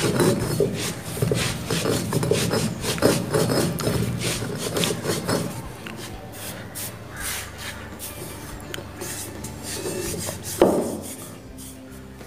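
Stone roller of an ammi grinding stone rubbing back and forth over roasted spices, grinding them into a coarse powder. After about five seconds the grinding gives way to softer scraping strokes as hands sweep the powder together on the stone, with one sharp knock about ten seconds in.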